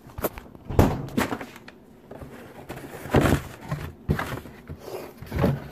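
Handling noise: several irregular thumps and knocks spread over a few seconds.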